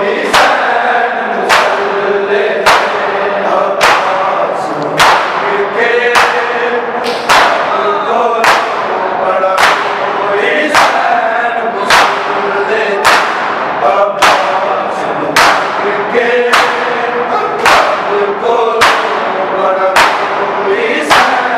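A large group of men doing matam, striking their bare chests with open hands in unison, a little under two strikes a second in a steady beat. Over the strikes, a chorus of male voices chants a Punjabi noha.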